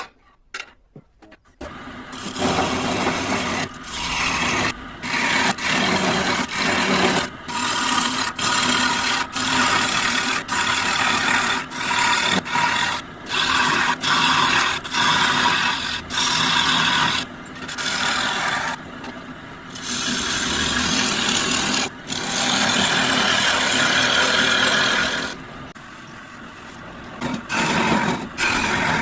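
Electric power tool cutting into wood: a steady motor hum under a rough scraping, starting about two seconds in after a few light knocks, and broken by short gaps every second or so.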